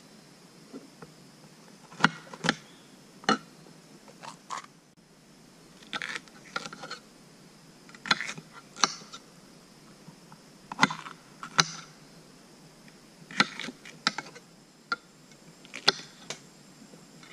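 A knife slicing a firm, unripe bell pepper into strips on a wooden cutting board, the blade giving sharp knocks in irregular clusters of one to three every second or two.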